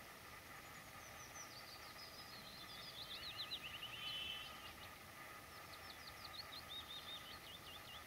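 A songbird singing two phrases of quick, high, down-slurred notes, the first ending in a short buzzy trill about four seconds in. Underneath is a faint steady hum and hiss.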